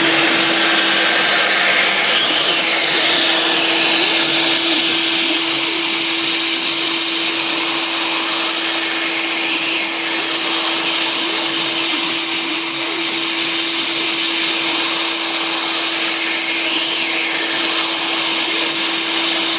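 Sieg SX2 mini mill's spindle running steadily with a constant whine over a dense hiss, its 6 mm cutter milling a hardwood block under CNC control.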